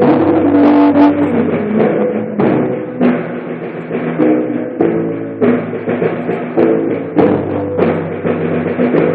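Live rock band music: a drum kit keeping a beat under sustained pitched chords.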